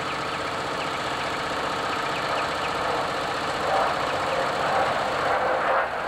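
Utility lift truck's engine idling steadily.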